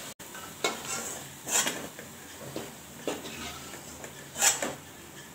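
Steel spatula scraping and clinking against a steel kadai and steel plate as fried pakoras are lifted out: a handful of separate short clinks and scrapes, the loudest about four and a half seconds in.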